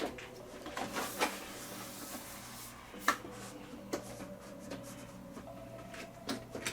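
Light rubbing and small clicks of thin plastic TV diffuser sheets being handled and seated onto their locating notches, with one sharper click about three seconds in, over a faint steady hum.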